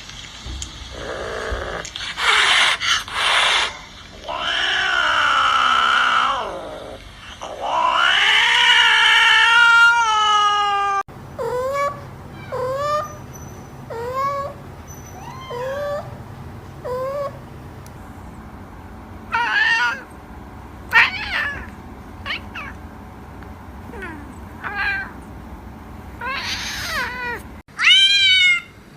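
Domestic cats meowing: long, loud drawn-out yowls with gliding pitch for the first several seconds, then after a sudden cut a run of short meows about one a second, followed by scattered higher-pitched meows.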